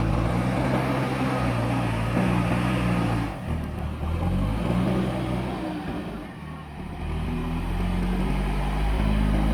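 Backhoe loader's diesel engine working under load, its revs rising and falling. It drops back about three seconds in, eases off around six to seven seconds, and climbs again near the end.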